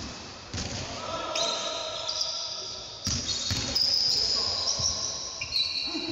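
Basketball play on a hardwood court: sneakers squeak in a series of short high-pitched squeals, and the ball bounces with a sharp thud about half a second in and again about three seconds in.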